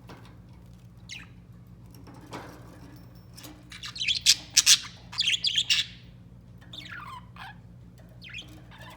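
Budgerigars chirping and warbling: scattered short, falling calls, with a loud, rapid run of chirps in the middle.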